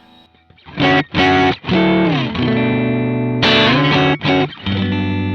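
Electric guitar played through a Kemper profiler with a vintage Gibson Skylark amp profile and weird stacked effects. Two short loud chord stabs come about a second in, then held notes whose pitch slides down, another stab a little past halfway, and a sustained note ringing on.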